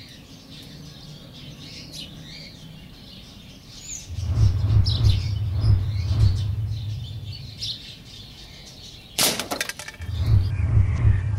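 Small birds chirping, then a loud low rumble for about three seconds. About nine seconds in, a sharp metallic hit as a BB from a CO2 pistol strikes an aluminium beer can and knocks it over, with a brief clatter on the stones.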